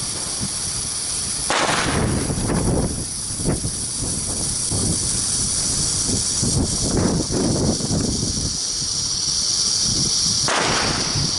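Fireworks and firecrackers going off: scattered bangs and crackling over a steady high hiss, with two louder rushing bursts, one about a second and a half in and one near the end.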